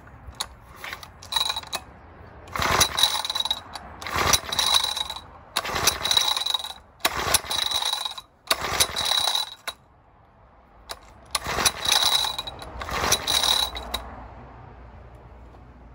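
Recoil pull-starter of a BSA 50cc stationary engine being yanked about eight times, each pull a second-long ratcheting whir of the cord and starter as the engine turns over. The engine does not catch: it has not run in seven years and fuel is only just reaching the carburettor.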